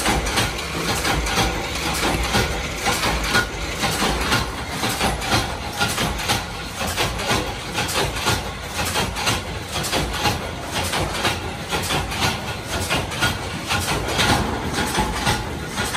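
Workshop machinery running with a steady low hum, under frequent clattering and rattling of thin sheet metal being lifted and handled.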